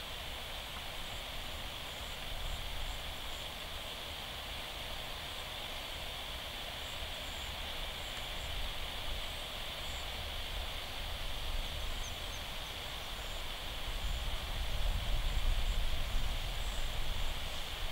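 Outdoor background noise: a steady high hiss over a low rumble that grows louder for a few seconds near the end.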